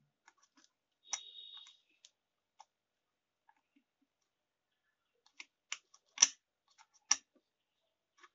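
Light metal clicks and taps of a screwdriver working against an amplifier circuit board and its aluminium heatsink, easing a desoldered TDA2030A amplifier IC straight. There is a click with a brief high squeak about a second in, then four sharper taps between five and seven seconds, the loudest about six seconds in.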